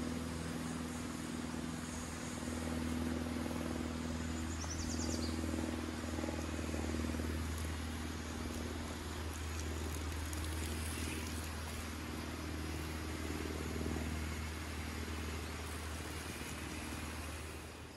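Water spraying from a garden hose wand onto potted plants, over a steady low motor hum.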